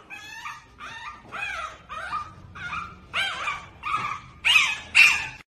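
Small puppy yipping and whimpering, a run of short high calls about two a second, each bending up and down in pitch, loudest near the end, cut off suddenly.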